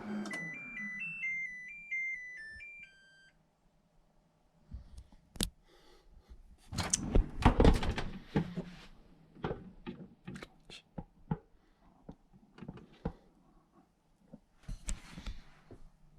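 Microwave oven's running hum winding down as the heating cycle ends, then its end-of-cycle melody of beeps for about three seconds. After that comes a run of clunks and clicks, the loudest cluster about seven to nine seconds in.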